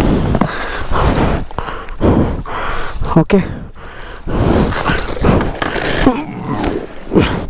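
Heavy panting and grunting from people straining to lift a fallen, luggage-laden motorcycle out of shallow water, in repeated short breaths. A single spoken word about three seconds in.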